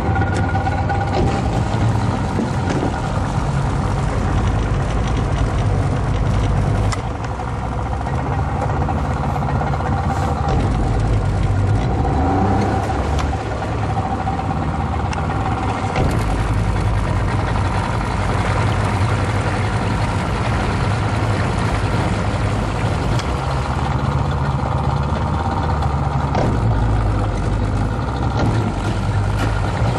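Boat motor running steadily, with a slight drop in level about seven seconds in.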